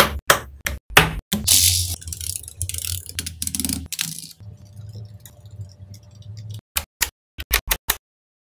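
Small magnetic balls clicking and clacking as hands snap and press them together, with a dense stretch of rattling and scraping in the middle and a quick run of sharp clicks near the end.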